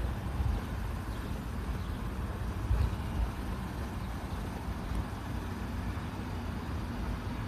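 Road traffic on the street alongside: a steady low rumble of car engines and tyres, swelling slightly about three seconds in.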